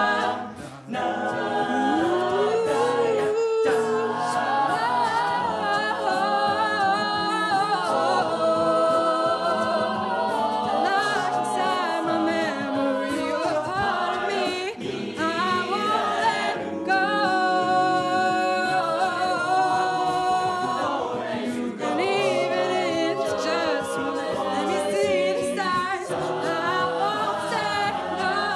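A cappella group singing into microphones: a lead voice over sustained backing harmonies, with a vocal-percussion beat underneath.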